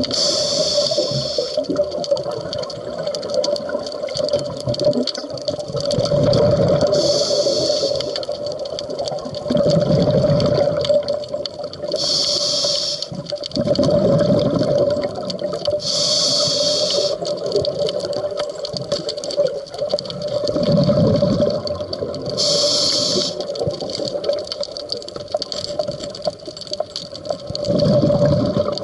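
A scuba diver breathing through a regulator underwater: a short hiss on each inhale, then a longer rumble of exhaled bubbles, about once every five seconds. A steady hum runs underneath.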